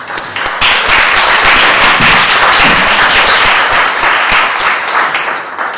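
Audience applauding: the clapping starts suddenly, stays loud and steady, and dies away near the end.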